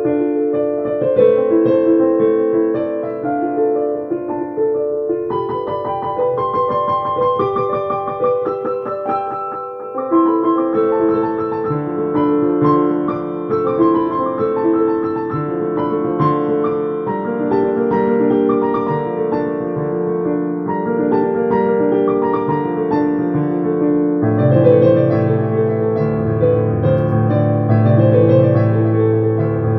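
Piano music: a slow melody of held notes, with a deeper bass line coming in near the end.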